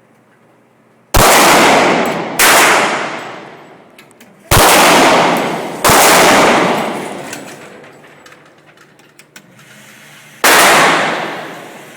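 Five single gunshots fired at an uneven pace, each with a long echoing decay: two a little over a second apart, two more about a second and a half apart, and a last one after a longer pause.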